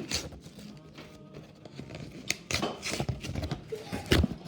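Doll-box packaging being torn and handled: a short rip at the start, then repeated rustling and tearing strokes that grow busier after about two and a half seconds.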